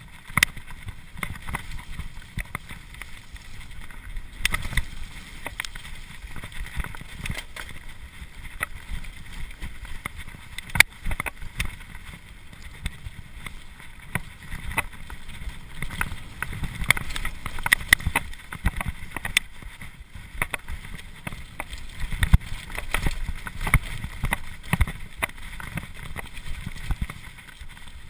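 Cube LTD Pro mountain bike running fast down a dirt trail: tyres rolling on dirt and wind rumbling on the microphone, with frequent sharp clicks and knocks as the bike rattles over bumps.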